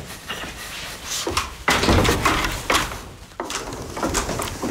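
Footsteps and knocks on wood, a few heavy steps walking away, the loudest a little under two seconds in and again around three seconds.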